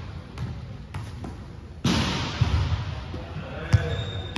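A volleyball thudding and bouncing on a hardwood sports-hall floor, several scattered knocks with a sharp smack near the end, amid people's voices.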